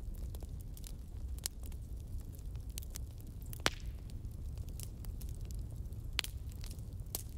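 Fire burning with a steady low rumble and scattered sharp crackles and pops. The loudest pop comes about halfway through, and another sharp one comes near the end.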